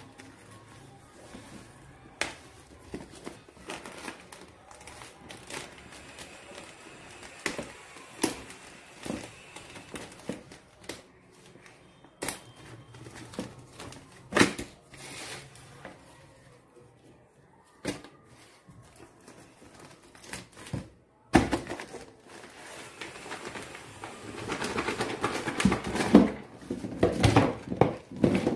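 Plastic packaging of a toy animal set being handled: scattered crackles and clicks, then dense, louder crinkling of a clear plastic bag of toy animals for the last seven seconds or so.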